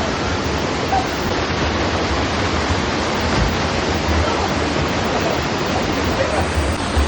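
Steady rush of a rainforest waterfall and river pouring into a pool.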